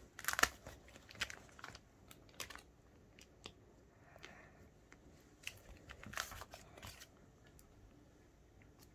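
Clear plastic pocket pages of a trading-card binder being turned and handled: faint crinkling and crackling in short bursts, loudest just after the start and again about six seconds in.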